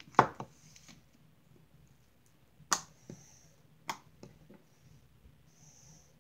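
Hands pressing and poking slime on a tabletop, giving a handful of sharp pops and clicks as air pockets in the slime snap. The loudest comes right at the start, with others about two and a half and four seconds in.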